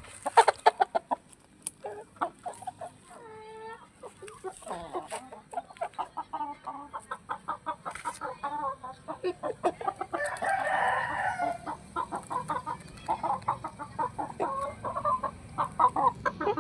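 Chickens clucking over and over in short, sharp calls, with a rooster giving a brief wavering crow a few seconds in.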